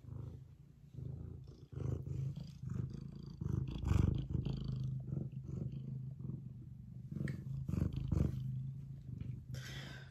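Domestic tabby cat purring steadily and loudly close to the microphone, with scattered brushing and bumping noises, the loudest about four seconds in and again near eight seconds.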